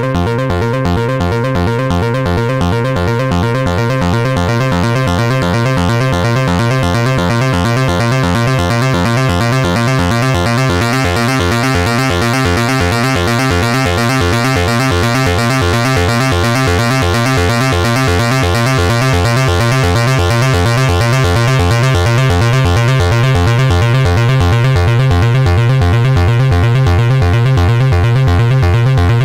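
Behringer 2600 analog synthesizer playing a hypnotic electronic pattern: a fast, evenly repeating bass pulse under a steady high drone. A brighter, hissy upper layer swells in about a third of the way through.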